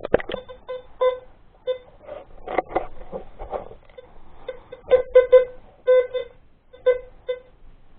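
Teknetics T2 Plus metal detector sounding a dozen or so short, identical beeps, some coming in quick pairs, with handling rustle partway through.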